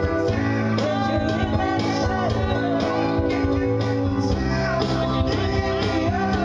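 Amplified live music: singing over an instrumental accompaniment, playing steadily.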